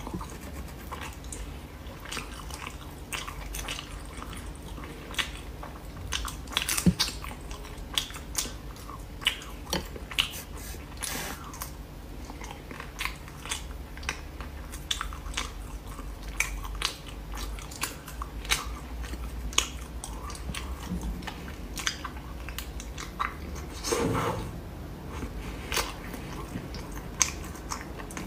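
Close-up mouth sounds of someone eating cooked snails: chewing and biting, with many irregular sharp wet clicks and smacks. There is a longer, fuller smack or slurp about three-quarters of the way through.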